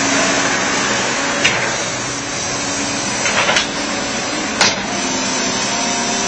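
John Deere backhoe loader's diesel engine running steadily under work, with a few sharp metallic knocks about a second and a half in, a cluster around three and a half seconds, and one more near four and a half seconds.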